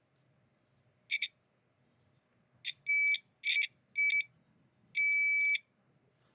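Multimeter in continuity mode beeping as the probe touches a connector pin: several short, broken beeps, then one longer steady beep about five seconds in as contact holds. The beeps signal continuity found, here through a ground wire.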